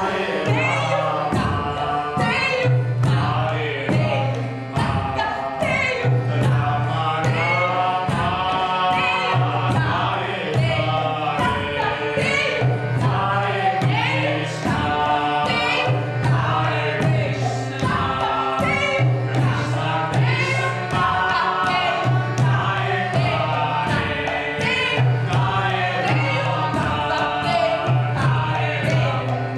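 Sung music: voices singing a wavering melody over a low bass note that returns in blocks every few seconds, with frequent percussion strikes.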